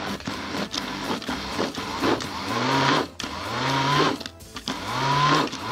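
Small electric food processor running on a mix of butter, sugar, chopped almonds and flour, first in one longer run, then in three short pulses about a second apart. Each pulse whirs up in pitch and then cuts off.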